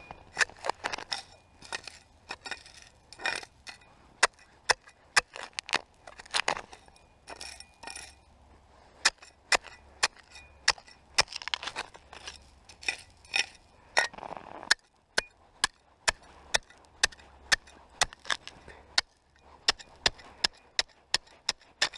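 A serrated digging knife stabbing and prying into snow-crusted gravel: a long run of sharp, irregular clinks and crunches as the blade strikes stones, with short scraping rustles between strikes.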